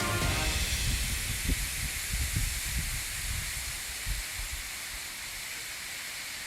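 Steady hiss of storm rain and wind, with low gusty rumbles over the first few seconds that then die away.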